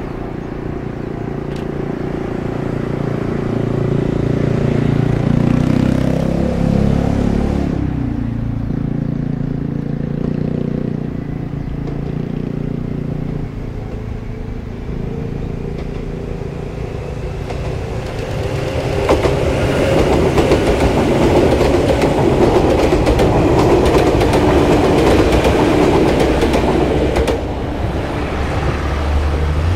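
Electric train running past on the tracks: a steady low motor hum at first. In the second half a slightly rising whine comes in, with rapid wheel clatter over the rails as the train goes by.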